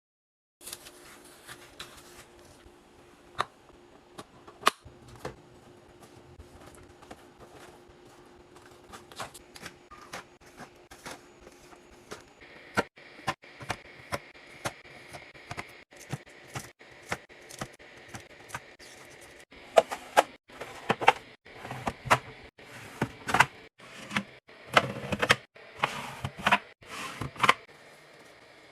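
Sharp clicks and knocks of containers, lids and bottles being handled and set down while restocking a fridge, getting busier and louder in the second half. A faint steady hum runs under the first part.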